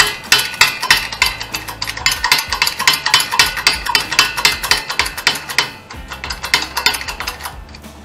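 Ratchet wrench clicking rapidly as its handle is swung back and forth on a socket over a hub nut. The clicking thins out to a few scattered clicks after about six seconds.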